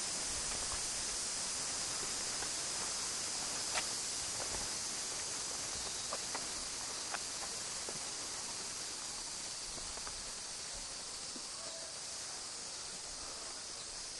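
Steady high-pitched buzzing chorus of forest insects, the jhijhi poka the whole hillside rings with. A few faint ticks are heard about four seconds in and again around six to seven seconds.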